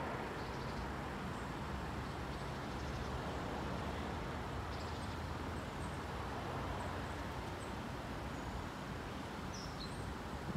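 Steady hum of distant road traffic, with small birds chirping faintly now and then.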